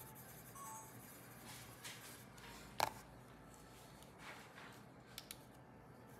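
A few faint pencil scratches on paper, then a wooden coloured pencil set down on the drawing with one sharp click almost three seconds in; two small ticks follow near the end.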